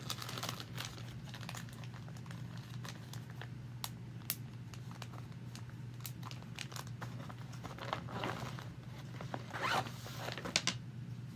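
Rustling and small clicks of cross-stitch projects and their packaging being handled, with two longer scraping sounds about eight and ten seconds in.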